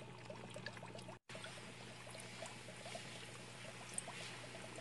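Faint, steady trickling and bubbling of aquarium water over a low hum, as from the tank's filter. The sound drops out for an instant about a second in.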